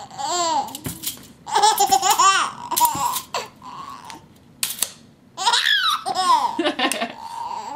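Baby laughing in repeated high-pitched bursts, with a few sharp clicks as a tape measure's blade is let go and snaps back into its case.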